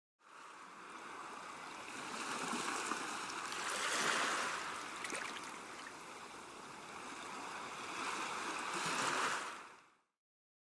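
Ocean surf washing onto a beach: a steady rush of waves that fades in, swells about four seconds in and again near the end, then fades out.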